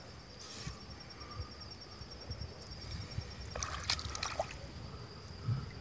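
Shallow lagoon water lightly sloshing and trickling around a small hand net, with a few small splashes about three and a half to four and a half seconds in.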